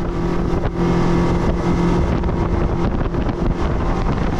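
Boat motor running at a steady speed, a constant hum over low rumble and wash, with wind buffeting the microphone.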